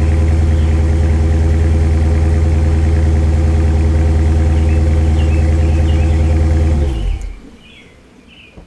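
2016 Dodge Challenger Scat Pack's 6.4-litre HEMI V8 idling steadily through its exhaust, then shut off about seven seconds in, the sound dying away within half a second. Faint bird chirps are heard after it stops.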